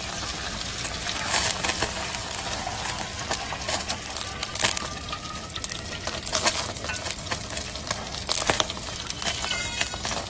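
Kitchen work: scattered clicks and clinks of metal utensils against a pan, over a steady hiss.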